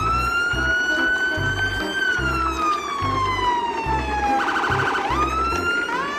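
Siren wail: one strong tone that rises, slowly falls over about two seconds, breaks into a fast warble about four and a half seconds in, then climbs again, over background music with a steady bass beat.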